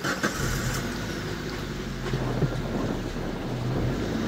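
Wind buffeting the microphone outdoors over a low steady hum, with a few faint knocks.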